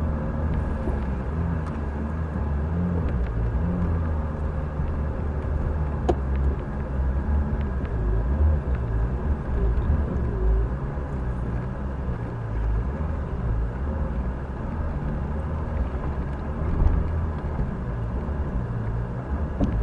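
Off-road vehicle driving slowly over a rough trail, its engine running at low revs under a steady low rumble, with a sharp click about six seconds in.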